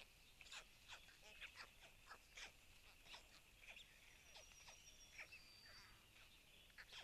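Faint calls of small wild birds: many short, quick descending chirps and a thin high whistle held for about a second a little past the middle.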